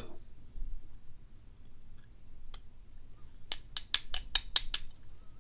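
Small metal clicks of a tool working the pins and springs out of a Schlage lock's pin chambers: a few faint ticks, then a quick run of about eight sharp clicks over a second or so.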